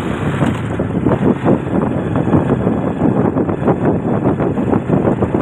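Wind buffeting the microphone and the running noise of a vehicle riding along an asphalt road: a loud, continuous, fluttering rush.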